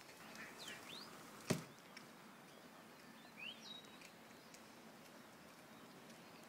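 A few short whistled bird calls over a quiet background: two quick pitch glides within the first second, and a rising call ending on a brief held note around the middle. A single sharp click, the loudest sound, comes about a second and a half in.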